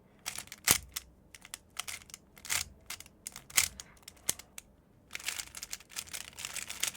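Plastic clicking and clacking of a MoYu RS3M 2020 speedcube being turned by hand, its layers loose with the springs taken out. Scattered sharp clicks, with a quick run of rapid turns a little after the middle.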